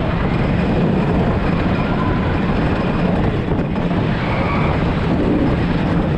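Wooden roller coaster train running at speed over wooden track: a loud, steady rumble and rattle of the wheels and cars, heard from on board.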